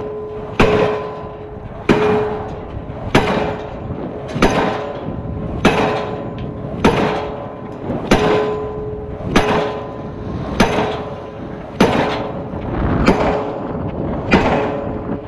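Diesel pile hammer driving a steel H-beam pile, with sharp blows at an even pace of about one every second and a quarter. A steady tone runs under the blows.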